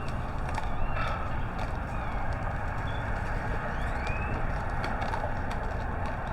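Steady low rumbling outdoor noise with scattered faint bird chirps and whistles, including a short rising whistle about four seconds in.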